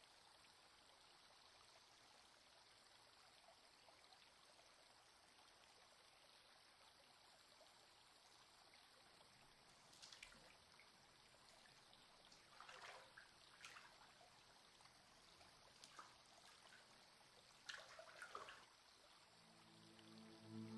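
Faint running water in a shallow stream, with a few soft splashes in the second half as a hand and then a foot move through the water.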